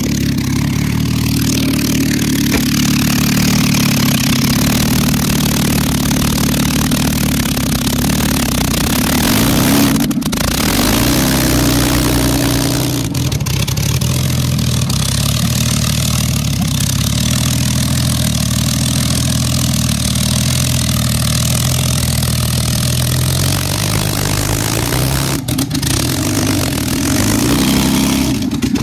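A rat rod's exposed front-mounted engine running steadily while the car is driven, its engine speed shifting now and then.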